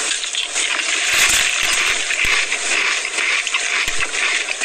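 Steady crackling rustle of a Doritos chip bag being handled, with scattered sharp clicks.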